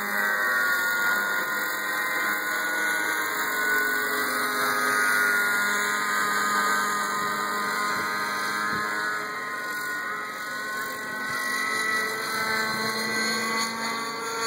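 Thunder Tiger Raptor 50 radio-controlled helicopter in flight, its two-stroke nitro glow engine and rotors giving a continuous high whine whose pitch drifts up and down a little as it manoeuvres.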